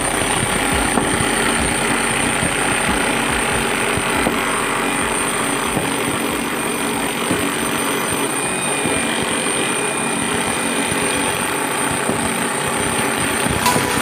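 Electric jackhammer chiselling into old concrete, hammering steadily with rapid strikes.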